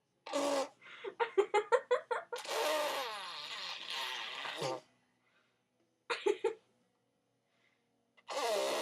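A little girl blowing raspberries, a mouth-made fart noise, in several bursts with pauses between: a short one, a quick run of pulses, a long drawn-out one, then more short ones later.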